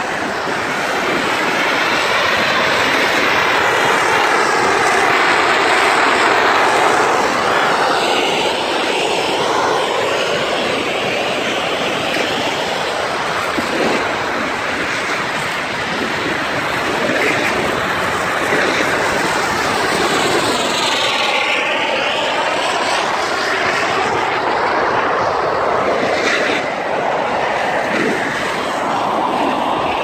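Snowmaking guns running on a ski slope: a loud, steady, jet-like rushing noise, its tone sweeping up and down about twenty seconds in.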